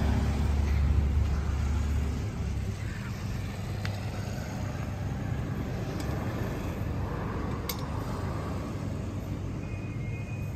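A motor or engine running with a steady low hum that cuts off about two seconds in, leaving a faint steady rumble with a few light clicks.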